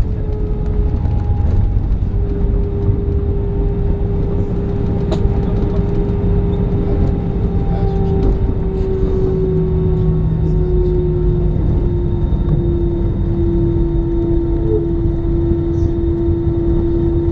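Cabin noise in an Airbus A320 taxiing: the jet engines run at idle with a steady whine that slowly drifts a little lower, over a continuous low rumble.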